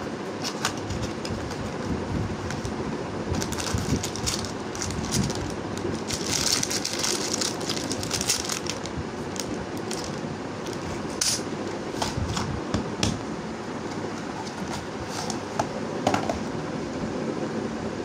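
Packaging being handled: a cardboard box opened and a plastic bag of small plastic bricks rustling and crinkling, with scattered light clicks and taps, over a steady fan-like background hum. The rustling is thickest a few seconds before the middle.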